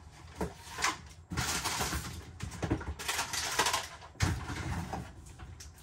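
Things rustling and clattering as they are packed into a shopping bag, with several knocks and a heavier knock about four seconds in.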